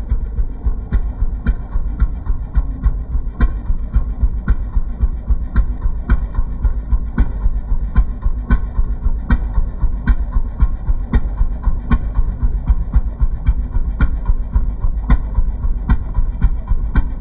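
56cc petrol engine of a large radio-controlled P-51D Mustang model idling on the ground, a steady low throb with sharp ticks about twice a second.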